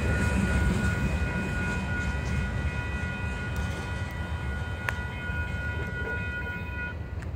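Rumble of a freight train fading as its last cars roll away from a grade crossing. The crossing signal's bell rings steadily over it and cuts off shortly before the end, with the train clear.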